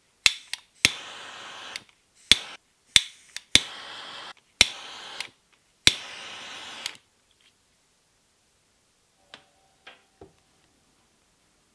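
Heat tool shrinking heat-shrink tubing over crimped wire joints, in short bursts: a sharp click, then about a second of steady hiss, five times over about seven seconds. A few faint taps follow near the end.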